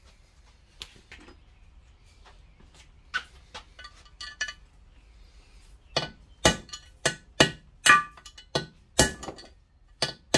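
Small brass-headed hammer striking a cracked aluminium Yamaha GP1300R jet-ski engine case to tap a bent section back flat before welding. A few light taps come first, then about ten sharp, ringing metallic strikes in quick succession over the last four seconds.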